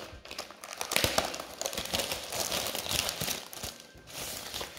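Clear plastic film crinkling and crackling as hands handle it, a dense run of small crackles.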